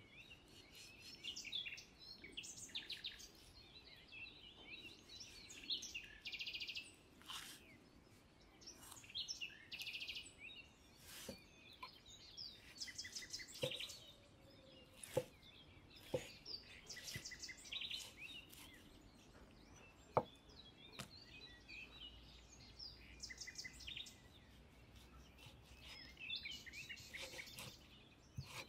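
Small birds chirping and singing throughout. A steel cleaver knocks sharply against a wooden cutting board a handful of times partway through, the loudest knock about twenty seconds in, as raw pork is sliced.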